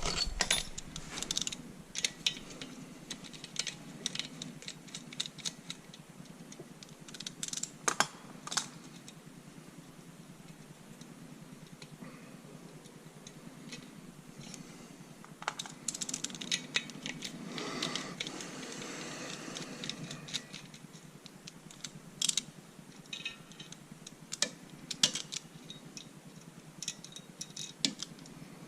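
Irregular clicks, taps and light clinks of small metal parts and hand tools being handled, with a longer stretch of scraping or rubbing about 16 seconds in that lasts some four seconds.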